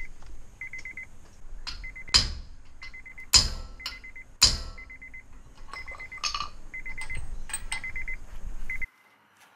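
Car's electronic warning chime sounding in short trills of rapid beeps, about once a second, with three loud metallic knocks in the first half. Everything cuts off suddenly near the end.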